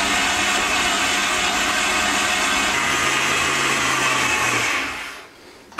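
Kenwood kMix stand mixer running steadily at low-to-medium speed, its creaming beater creaming butter and sugar in a glass bowl; the sound fades away near the end.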